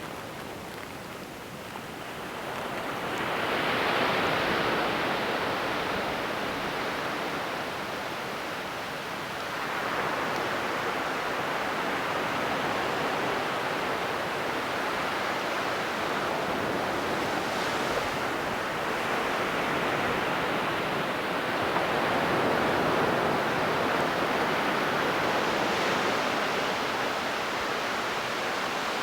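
Ocean waves breaking and washing up a sandy beach: a steady surf wash that swells as a wave comes in about three seconds in, again about ten seconds in, and again past twenty seconds.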